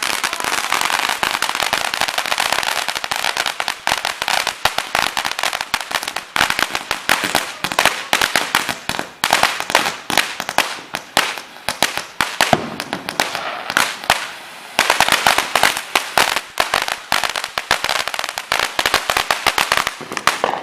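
Fireworks going off in a dense, continuous crackle of many rapid small cracks and pops. The crackle thins briefly about two-thirds of the way through, then picks up again.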